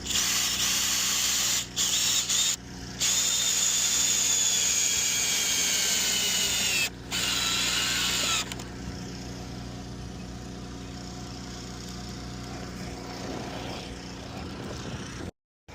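Cordless drill running in several bursts, its whine falling in pitch as it slows: the battery is running flat. It stops about eight seconds in.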